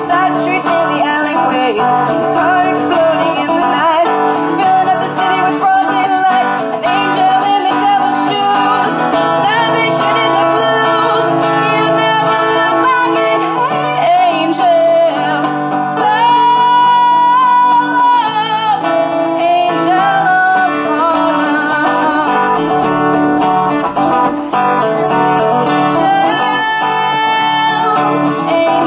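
Live acoustic band: two acoustic guitars strummed under women's voices singing a song, with a long held sung note about two-thirds of the way through.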